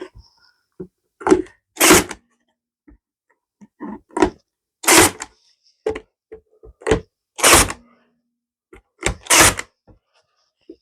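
A pin nailer firing pins to fix feather edge board cladding, eight sharp shots in rough pairs a couple of seconds apart.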